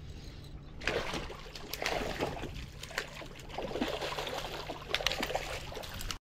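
A hooked catfish thrashing at the water surface, with a run of irregular splashes starting about a second in that cut off suddenly near the end.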